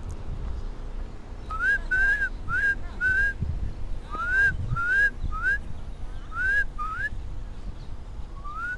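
About ten short whistled notes, each sliding up in pitch, coming in quick groups of two or three for several seconds, with one last rising note near the end.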